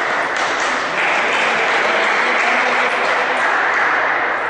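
Spectators applauding, a dense stretch of clapping that dips briefly about half a second in, then picks up again and fades near the end.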